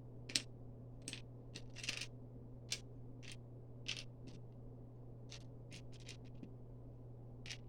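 Small plastic Lego pieces clicking and clattering as they are picked over and sorted by hand: a dozen or so irregular light clicks, over a faint steady low hum.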